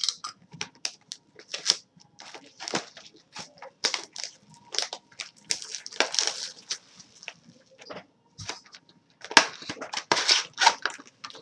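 Plastic shrink-wrap being slit and peeled off a cardboard trading-card box: irregular crinkling and crackling with sharper rips, loudest a little over nine seconds in.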